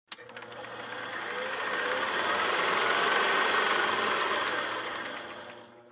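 Film projector sound effect: a fast, even mechanical clatter that swells in and fades out.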